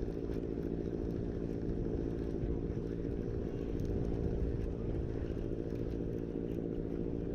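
An engine running steadily: a low, even drone that holds one pitch throughout.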